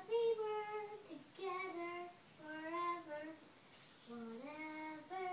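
A young girl singing a simple tune in short held phrases, the notes sliding from one pitch to the next, with brief pauses between phrases.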